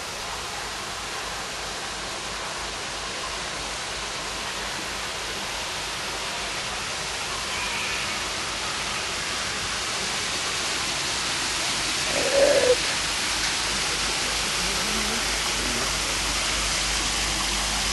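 Steady rushing, hiss-like noise that slowly grows louder, with a short, fainter sound about twelve seconds in.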